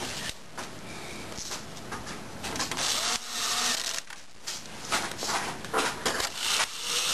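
Screwdriver driving the redrive screws into a Lexmark T-series laser printer: irregular clicks and knocks of metal and plastic, with stretches of scraping about a third of the way in and again near the end.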